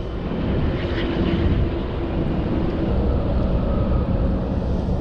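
Steady engine drone of a passing motorboat, a low rumble with a faint steady hum over it.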